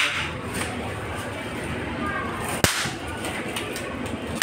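A single sharp click about two and a half seconds in, over a low steady hiss.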